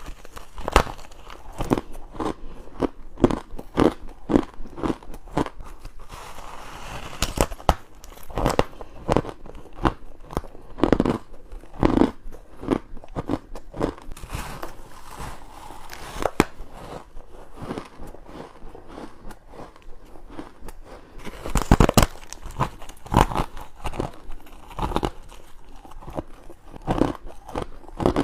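Close-up crunching bites into frozen humidifier frost and ice cubes: a steady run of crisp, crackly crunches in irregular clusters, some louder bites about three-quarters of the way through.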